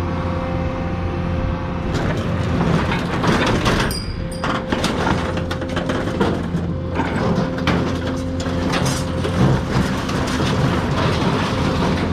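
An engine running steadily, with scrap metal clattering and scraping as it is unloaded from about two seconds in.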